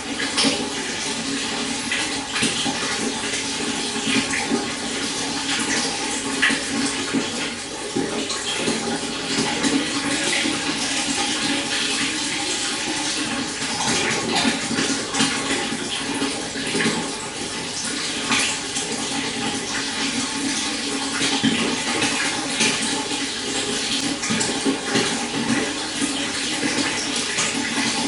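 Stream water flowing and babbling steadily, with many small splashes and trickles over stones.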